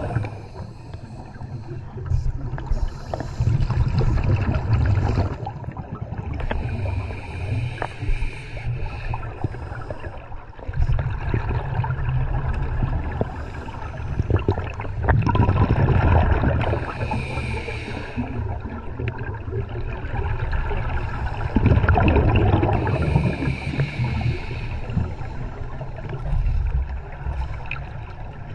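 Scuba diver's regulator breathing underwater: a hiss on each inhale and a bubbling rumble of exhaled bubbles, repeating every few seconds.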